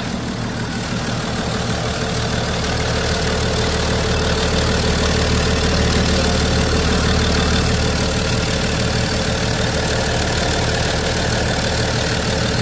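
BMW 535d's 3.0-litre twin-turbo straight-six diesel idling steadily, running on its first start after a failed high-pressure fuel pump, the injectors, the low-pressure fuel pump and the rail pressure sensor and regulator were replaced.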